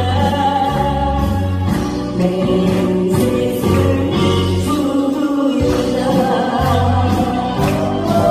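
A woman singing a Korean trot song into a microphone over a backing track with bass and drums, her voice held in long notes with vibrato.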